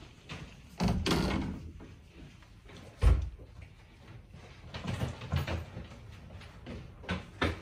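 Hotel room door swinging shut with one loud thud about three seconds in, among smaller knocks and handling sounds.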